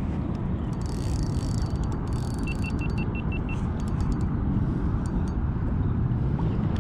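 Wind rumbling on the microphone while a spinning reel is cranked to bring in a hooked fish, with scattered light clicks. About two and a half seconds in comes a quick string of about seven short high beeps.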